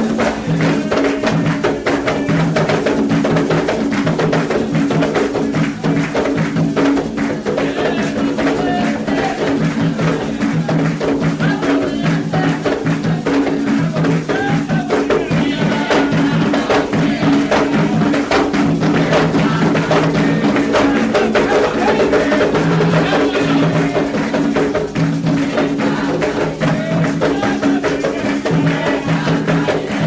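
Candomblé ritual percussion: atabaque hand drums and a struck percussion instrument play a dense, steady dance rhythm without a break, with voices in the background.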